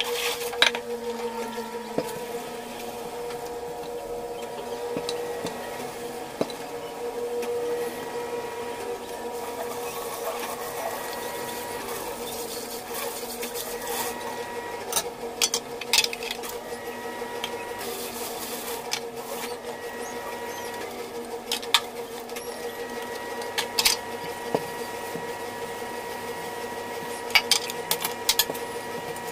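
Hand dishwashing at a stainless steel sink: pots, lids and utensils clink and clatter now and then, the sharpest knocks near the start and in the last few seconds. Under them runs a steady hum.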